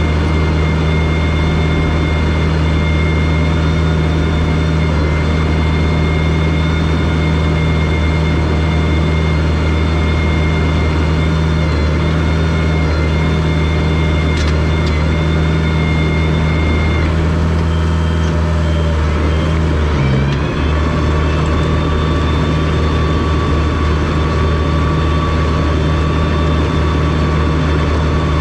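Komatsu DP21 bulldozer's diesel engine running steadily under work, with a thin high whine over it. The whine fades about 17 seconds in, and after a brief dip in the engine note about 20 seconds in, a lower whine takes its place.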